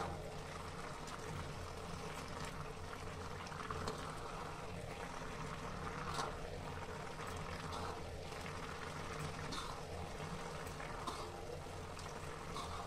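Carrot halwa bubbling in a steel pan on high flame as its water boils off, with a few short clicks of a metal spoon against the pan as it is stirred.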